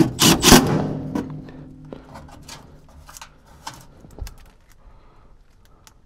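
A Milwaukee Fuel cordless drill/driver runs briefly right at the start, its motor tone fading out over the next few seconds. Scattered light clicks and taps follow as parts are handled in the furnace cabinet.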